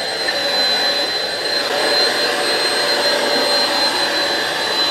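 Deerma vacuum cleaner running steadily with a constant high-pitched whine over its suction noise, vacuuming dust off a foam mattress.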